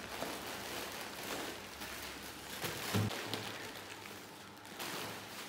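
Thin plastic carrier bags rustling and crinkling as packs of instant noodles are pulled out, with a thump about three seconds in.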